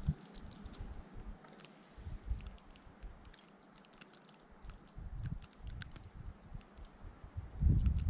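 Snowstorm wind in a lull: a soft hiss scattered with many small quick ticks of blown snow. The wind gusts up again near the end, rumbling on the microphone.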